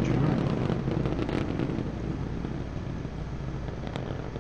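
Starship SN15's three Raptor rocket engines heard as a steady low roar during ascent, slowly getting quieter as the vehicle climbs away.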